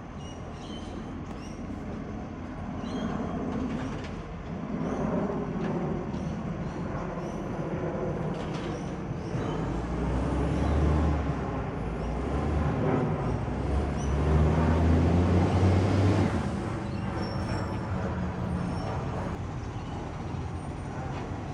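Garbage truck's diesel engine running with a loud exhaust leak. About halfway in it pulls harder and louder, its pitch stepping up, and it eases off again a few seconds later.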